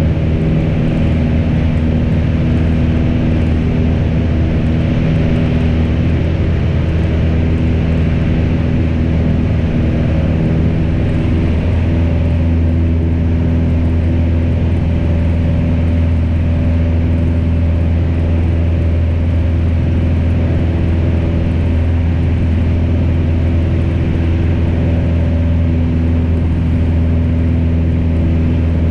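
Piper PA-28 light aircraft's piston engine and propeller droning steadily in flight.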